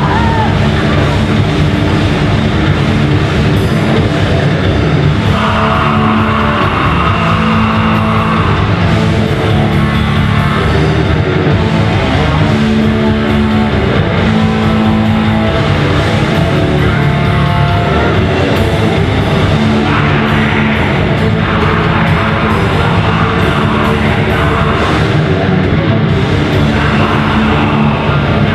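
A live heavy rock band playing loudly, with distorted guitars and a drum kit.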